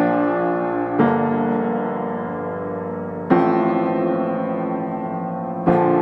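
Background piano music: slow chords, each struck and left to ring and fade, a new one every one to two and a half seconds.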